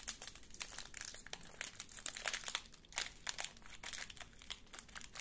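Plastic snack-bar wrapper being torn and worked open by hand, crinkling and crackling in quick irregular bursts.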